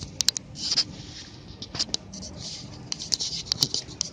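Scattered sharp clicks, about a dozen, with short bursts of rustling and scraping between them, typical of someone working a computer mouse and keyboard.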